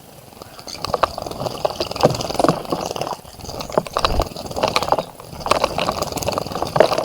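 A bird splashing in a bird bath: irregular bursts of water splashing and flicking, picking up about a second in.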